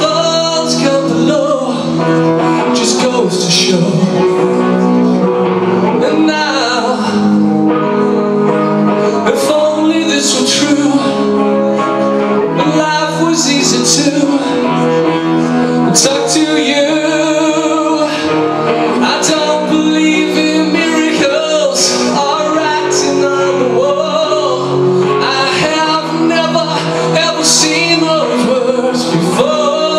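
A male singer with a rock band, the vocal line carried over guitar and sustained band accompaniment.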